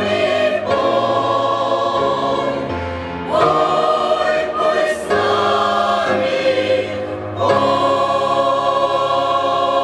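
Church choir singing a hymn in sustained chords, with new phrases entering about a third of the way in, halfway, and about three-quarters through.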